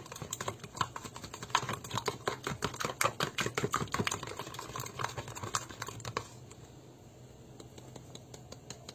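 A spoon stirring a runny egg-and-milk batter in a plastic cup: quick, irregular clicking and tapping of the spoon against the cup's sides. It stops about six seconds in, leaving only a few faint clicks.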